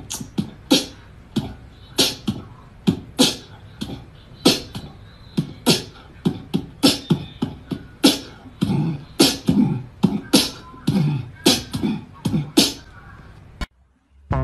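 A cat hissing and spitting in short, sharp bursts, irregularly, about two a second: a defensive warning. The bursts stop suddenly near the end.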